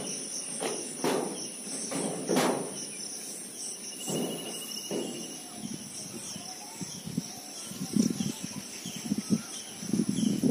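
Insects trilling steadily, with small repeated bird-like chirps. Several sharp knocks come in the first five seconds, and an irregular crackling or rustling sound grows from about eight seconds in.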